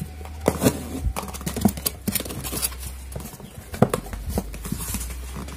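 Hands handling a Wasser shallow-well water pump packed in its cardboard box with styrofoam blocks: irregular knocks, taps and rubbing of plastic, cardboard and foam as the pump is pushed and tugged to lift it out.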